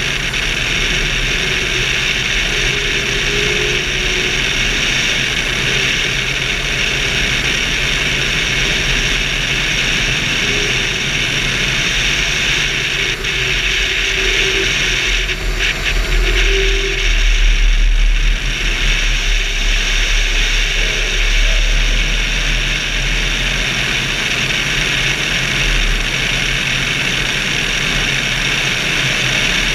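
Steady rush of airflow over a wing-mounted camera in flight, with a steady low hum underneath. The wind rumble swells louder for several seconds around the middle.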